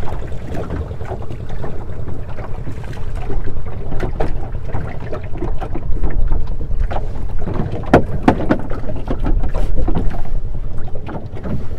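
Wind rumbling on the microphone over water lapping against the hull of a small anchored boat, with scattered knocks and one sharper knock about eight seconds in.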